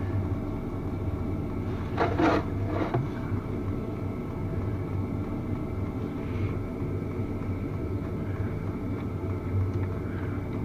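A steady low mechanical hum, with a short clatter about two seconds in.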